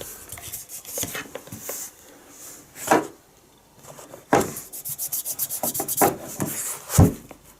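Packaging being handled and opened: rubbing and scraping, a knock about three seconds in, a quick run of small ticks, and a heavier thump near the end.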